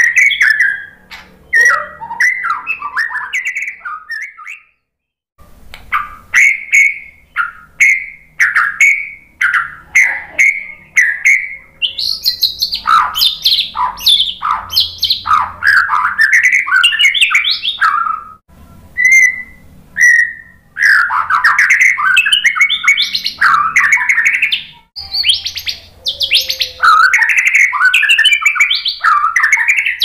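Male white-rumped shama (murai batu) singing a long, varied song of rapid whistled phrases and chatter, laced with imitations of other birds. The song stops briefly about four seconds in and thins to a few single notes around eighteen seconds in. Between those breaks it runs as dense, unbroken song.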